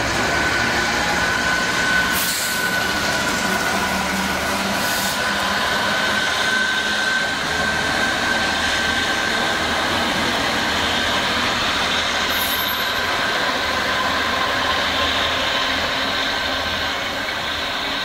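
Class 66 diesel freight locomotive with its EMD two-stroke V12 engine working under power, and the rumble of freight wagons on the rails, with a steady high whine over it. A few brief sharp clicks stand out.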